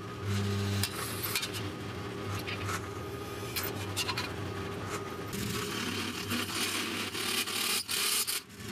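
Continuous scraping and rasping of metal being worked on square steel tubing, over a low steady hum, starting abruptly.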